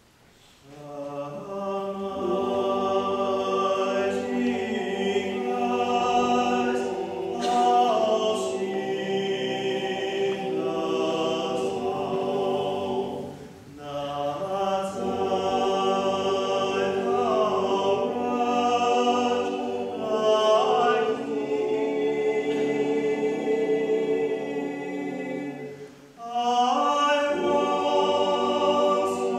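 Male vocal octet singing a cappella in close harmony. The voices come in about a second in and sing in long phrases, with brief breaks between phrases about 13 and 26 seconds in.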